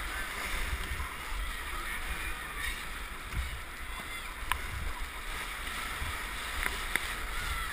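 Whitewater rapids rushing around a downriver racing kayak as it is paddled hard, water splashing off the blades and bow, with a heavy low rumble of water buffeting the boat-mounted camera. A few sharp clicks stand out, one about halfway through and two near the end.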